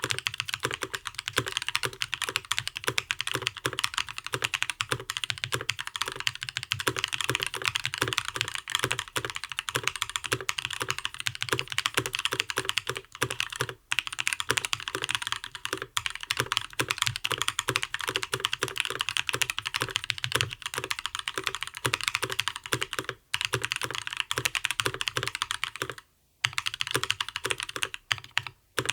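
Continuous typing on a custom mechanical keyboard with lubed Gazzew Linear Thock linear switches in an aluminium plate and ePBT PBT keycaps: a fast, dense stream of keystrokes, broken by a few brief pauses.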